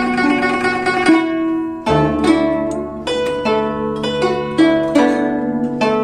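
Guzheng (Chinese zither) played solo: fast, dense plucking for about the first two seconds, then a deep bass note struck and a run of separately plucked, ringing notes.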